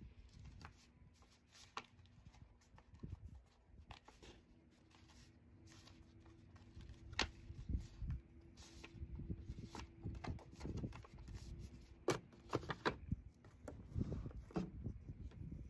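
Cardboard box and paper packaging being handled: scattered light rustles, scrapes and a few sharp taps as a gift box is lifted out of a shipping carton and its ribbon pulled loose.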